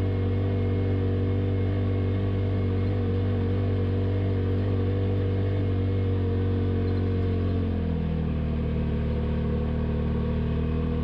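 Polaris RZR Pro XP side-by-side's engine running steadily at low trail speed. Its note drops a step about eight seconds in as the revs come down.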